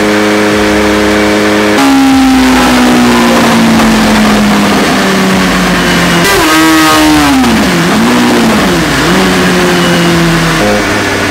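Kawasaki ZX-6R 636 inline-four engine revving hard on a dynamometer. It holds steady revs, jumps up about two seconds in, and then drifts slowly down. Around the middle the revs swing up and down with a rushing noise, before it settles at a steadier, lower note.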